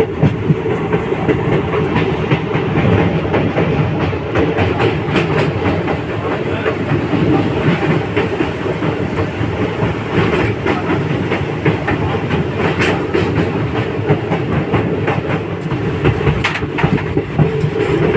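Passenger train running steadily, heard from on board: a continuous rumble of wheels on track with scattered, irregular clacks.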